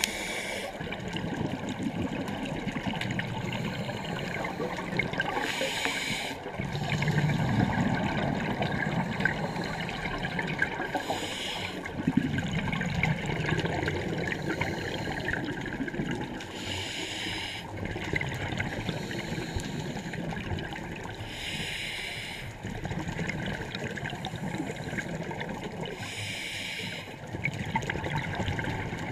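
Scuba diver breathing through a regulator underwater: a short hiss of inhalation about every five seconds, six times, with the low bubbling of exhaled air between breaths.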